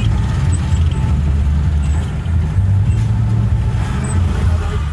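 Heavy city road traffic: vehicle engines making a steady low rumble over a wash of road noise.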